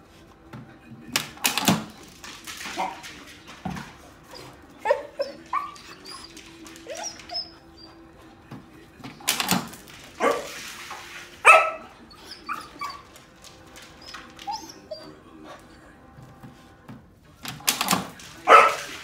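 A dog whining and yipping excitedly, with several short, loud barks.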